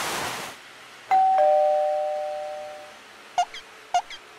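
Animation sound effects: a short whoosh, then a two-note falling ding-dong chime that rings out for about two seconds, then short paired squeaky blips about every half second near the end.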